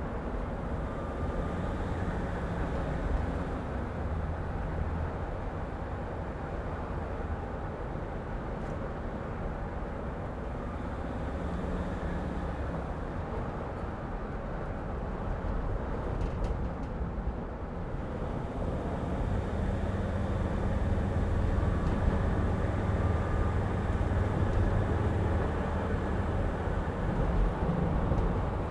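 Steady low rumble of engine and road noise inside a 2006 Mercedes Sprinter van's cab while it is being driven. The rumble gets louder about two-thirds of the way through.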